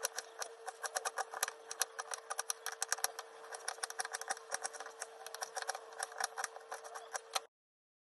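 Kitchen knife chopping an onion on a cutting board: quick, even taps of the blade hitting the board, several a second, over a faint steady hum. It all stops abruptly near the end.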